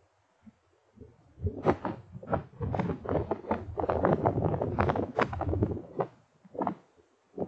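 Irregular rumbling and crackling on a thermal monocular's built-in microphone. It starts about a second in, runs densely for several seconds, then breaks into a few separate bursts near the end.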